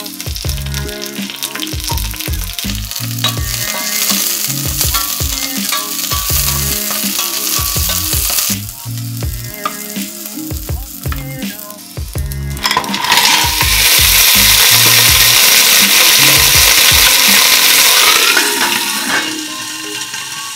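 Lemongrass, ginger, green onions and shiitake mushrooms sizzling as they sauté in a stainless steel pot, stirred with a wooden spatula. About halfway through the sizzle swells much louder for several seconds, then dies back down. Background music with a bass line plays underneath.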